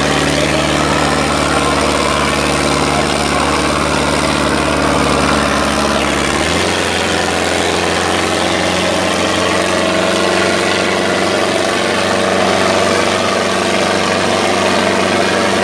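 Ace tractor's diesel engine running hard under the heavy load of pulling two harrows through ploughed soil. The engine note steps up to a higher pitch about six and a half seconds in and holds there.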